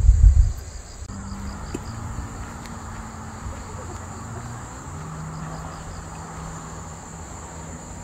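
Insects chirring in a steady, high, even buzz, with wind buffeting the microphone in the first half second.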